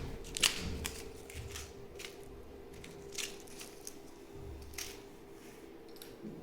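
Small plastic accessories and packaging being handled and opened: scattered clicks and rustles over a faint steady hum.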